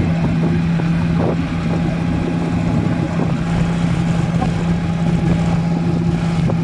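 Off-road vehicle engine running loud and steady at a constant pitch.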